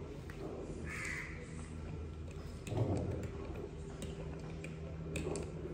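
Quiet room tone with a low steady hum, broken by a few faint ticks and clicks of breakfast tableware and a glass water mug being handled, most of them in the second half.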